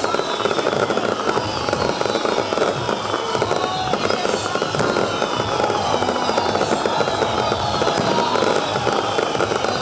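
Fireworks going off in a dense, continuous crackle, with high whistles that fall in pitch again and again over it.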